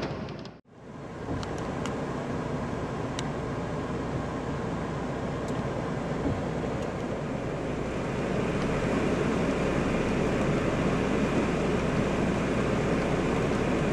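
Steady rush of heavy rain and wet-road tyre noise heard from inside a moving car, with a few sharp drops tapping. The sound cuts out briefly under a second in, and the rush grows slightly louder about eight seconds in.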